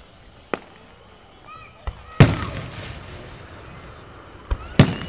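Fireworks exploding: five sharp bangs, the loudest about two seconds in with a rolling echo after it, and two more close together near the end.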